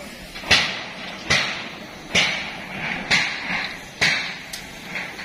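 Hammer striking steel, five evenly spaced blows a little under a second apart, each with a short ringing tail, then a couple of lighter taps near the end.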